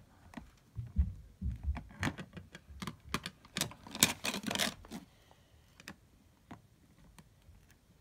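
Plastic Lego bricks and plates clicking and rattling as they are handled and pressed onto a baseplate, with a few dull knocks from the plastic case. The clicks are busiest in the first five seconds and thin out to a few scattered ticks after that.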